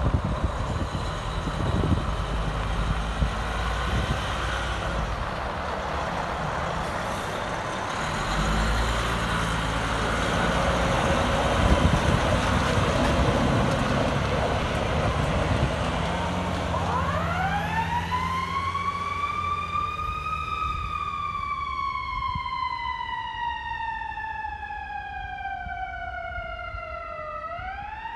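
Heavy rescue fire truck's diesel engine rumbling as it pulls out and drives past, loudest about halfway through. About two-thirds of the way in its siren starts: a steep climb in pitch, then a slow fall over several seconds, climbing again near the end.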